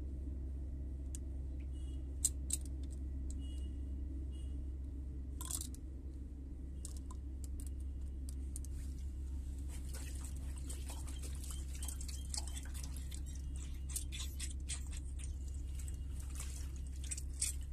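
Steel pistons clicking in the cylinder block of a hydraulic axial piston pump as it is handled. From about halfway in, liquid splashes and sloshes as the parts are scrubbed by hand in a washing tray. A steady low hum runs underneath.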